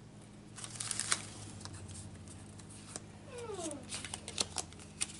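Pokémon trading cards handled and fanned through by hand: light papery clicks, snaps and rustles, loudest about a second in and again near the end. A short pitched sound slides down in pitch about three and a half seconds in.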